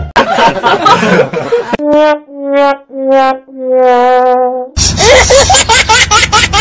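Sad-trombone comedy sound effect: four falling brass notes, 'wah-wah-wah-waaah', the last one held long and wavering. It comes after a short burst of loud noise, and loud voices break in near the end.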